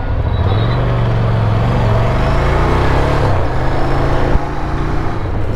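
Ducati Scrambler motorcycle's L-twin engine running steadily under way, its note rising briefly in the middle.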